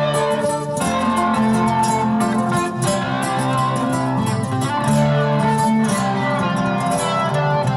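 Nylon-string guitar playing an instrumental ambient passage: plucked notes ringing out over long-held low notes.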